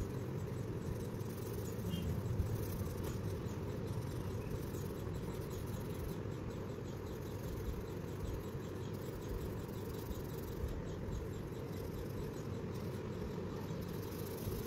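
Colour pencil shading on paper: repeated faint scratching strokes, over a steady low background rumble.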